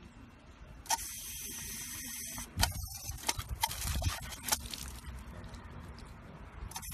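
Water hissing out of a step-on dog water fountain as a German Shepherd presses its paw pedal. The spray starts suddenly about a second in, with a few sharp clicks and low thumps from the dog working the pedal and spout.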